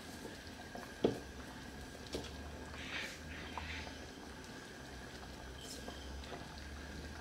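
Soup bubbling at a boil in an enamelled cast-iron pot over a low steady hum, with a sharp knock about a second in, a few lighter clicks, and a brief grinding rasp about three seconds in as pepper is ground over the pot.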